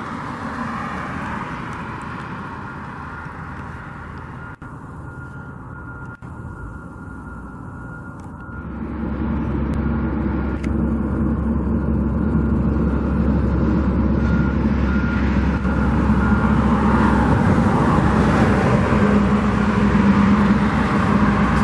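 Heavy vehicle engine running, moderate at first and becoming much louder about eight seconds in, then staying loud. A steady high tone runs above it and later breaks into short repeated beeps.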